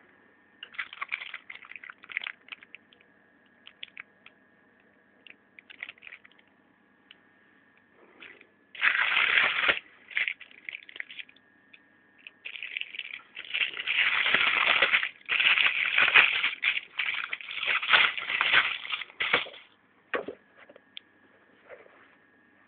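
Self-inflating whoopee cushion being handled and squeezed. Scattered short, sharp noises come first, then a loud noisy burst about nine seconds in, and a longer run of loud, choppy bursts from about thirteen to nineteen seconds. A faint steady high hum sits underneath.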